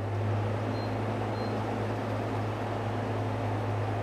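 DC inverter air conditioner running after being switched on: a steady low hum with an even fan-like rush over it.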